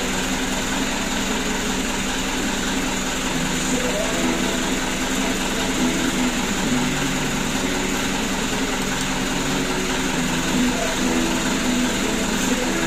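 A steady machine drone, with faint tones over it that change pitch every second or so.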